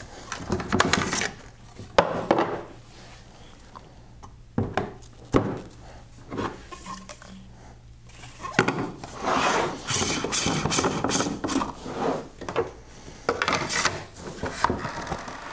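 Plastic reverse-osmosis filter housings being screwed onto their plastic manifold and tightened with a plastic ring wrench. A few sharp clicks and knocks come in the first half, then spells of plastic-on-plastic rubbing and scraping as the threads turn.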